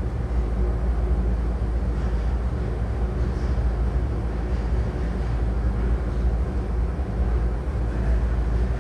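Steady low hum with an even hiss over it: constant background noise with no distinct events.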